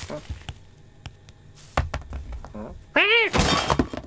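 Cartoon foley of groceries thudding and knocking as an animated cat rummages through shopping bags and scatters them. About three seconds in comes a short cat call that rises and falls in pitch.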